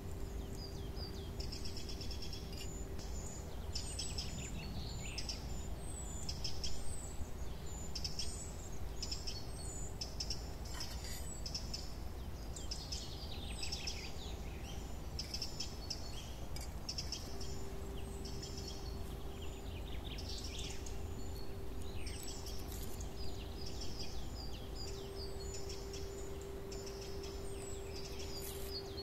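Small songbirds chirping and trilling in quick, repeated short calls throughout, over a steady low background rumble and a faint steady hum.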